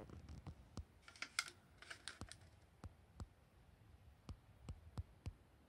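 Faint, irregular light clicks, about a dozen, with two short rustles a little after the first second and around two seconds in: handling noise from a handheld camera moving over the board.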